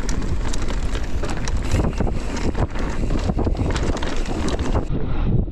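Wind buffeting the microphone while a mountain bike rides fast down a trail, with constant rattling and knocking from the bike over rough ground.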